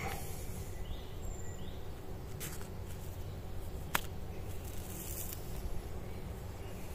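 Woodland ambience: a steady low rumble with a few faint, short rising bird chirps in the first two seconds. There is some rustling and a single sharp click about four seconds in.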